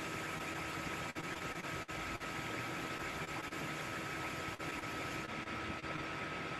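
Steady background hiss with a faint, steady high-pitched whine, broken by a few very brief dips; no speech.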